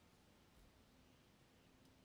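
Near silence: only a faint background hiss.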